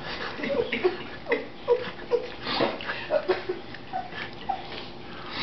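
A dog licking peanut butter off a person's face: quick, irregular wet licks, slurps and smacks of tongue and lips.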